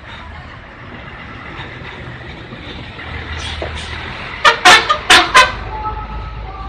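Bus 'telolet' multi-tone musical horn sounding four short, very loud blasts about four and a half seconds in, after a steady low rumble from the bus, and followed by quieter held tones.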